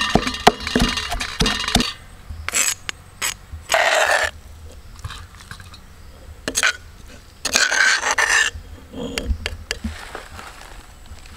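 Stone pestle pounding garlic in a stone mortar: a quick run of knocks over about the first two seconds. After that come a few separate scrapes and clinks of metal as the crushed garlic is scraped into a steel bowl.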